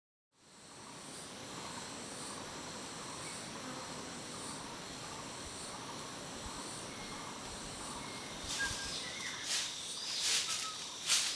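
Forest ambience with a steady high insect buzz and soft chirping, fading in from silence. A few crackling rustles of leaves or undergrowth come in near the end.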